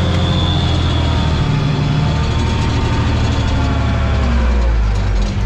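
Tractor engine running steadily under load while pulling a harrow, heard from inside the cab with a deep hum; its pitch sags a little past the middle.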